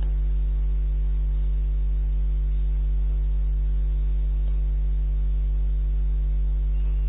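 Steady electrical hum with a stack of evenly spaced overtones, unchanging throughout: mains hum on the recording.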